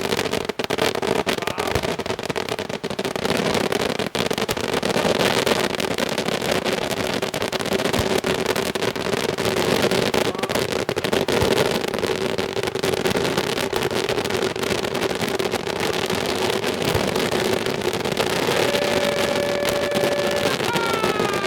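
Italian daytime fireworks: a dense, continuous barrage of rapid crackling bangs. Near the end, steady whistles sound for about two seconds, then falling whistles.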